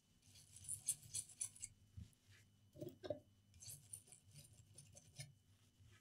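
Small brush scrubbing and a microfibre cloth wiping over a circuit board: faint, quick scratchy strokes in two spells of about a second and a half each, with a couple of soft knocks in between.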